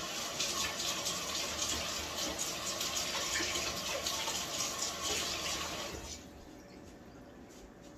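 Kitchen sink tap running as hands are washed under it. The water is turned off about six seconds in.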